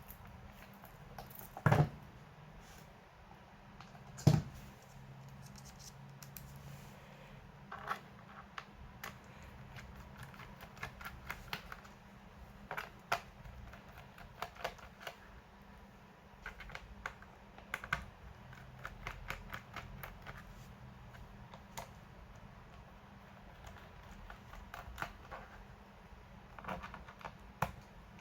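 Irregular small clicks, taps and scrapes of hands and small tools working on a laptop's plastic case, with two louder knocks in the first few seconds.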